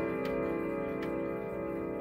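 Howard Miller Haverhill grandfather clock's chime rods ringing out, a blend of held tones slowly fading. Its pendulum escapement ticks about once a second.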